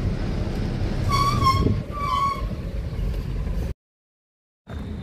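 Eicher truck's diesel engine and road rumble as the truck pulls over to stop, with two short high-pitched squeaks in the middle. The sound cuts out completely for about a second near the end.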